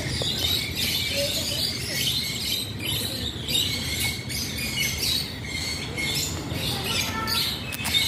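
Birds chirping and twittering in many short, high calls throughout, over a steady low background rumble.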